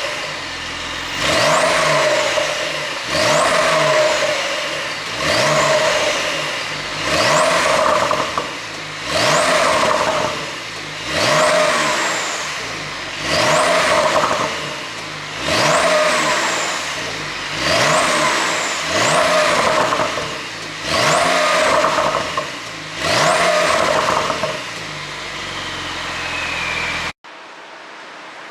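Porsche 911 (992) Carrera's twin-turbo flat-six engine revved over and over through its exhaust, about a dozen blips roughly every two seconds, each rising quickly and falling back. Near the end the sound cuts off suddenly to a faint hiss.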